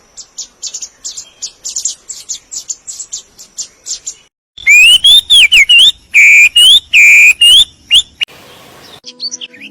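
Birds calling: a fast run of high chirps, then, about halfway through, a series of loud whistled notes that rise and fall in pitch.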